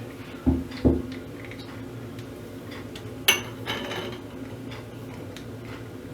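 Two dull knocks early on, then a sharp click that rings briefly and a few light clinks: small hard objects being handled and set down, over a steady low hum.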